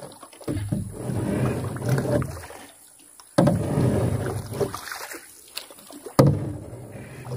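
A small fishing boat knocking and rocking as it is moved on the water. There are three bouts about three seconds apart, each setting off a couple of seconds of rustling, scraping noise that fades.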